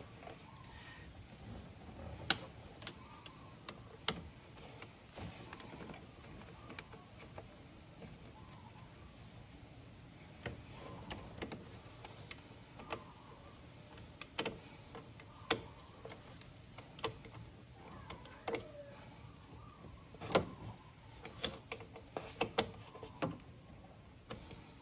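Scattered, irregularly spaced sharp clicks and taps of metal and plastic as the positive battery cable clamp is fitted back onto its terminal and tightened with a hand tool.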